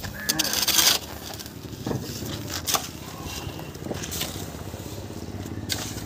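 Building-site noise: a loud scraping rustle under a second in, a few sharp knocks, and a low steady machine hum with a fine even rhythm through the second half.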